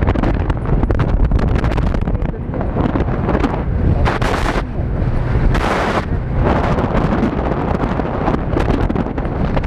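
Wind buffeting hard on the microphone of a moving motorcycle, a dense rumble full of crackling gusts, with two short, louder bursts of hiss about four and five and a half seconds in.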